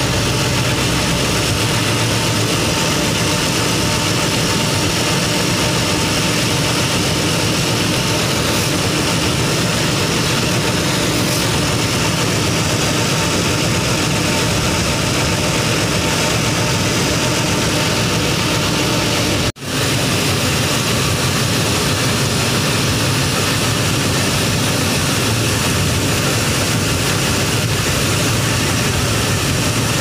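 Fiatagri combine harvester running steadily at working speed while its unloading auger empties wheat grain into a trolley. The sound cuts out for a moment about two-thirds of the way through.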